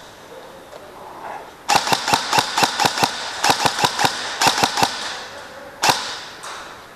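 Airsoft gun firing a rapid string of shots, about fifteen in quick bursts over some three seconds, then a single shot and a fainter one near the end.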